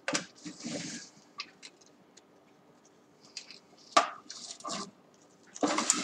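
Hands handling small objects on a tabletop, a pair of scissors and a tea bag among them: a clatter at the start, a sharp knock about four seconds in, and short rustling noises in between and near the end.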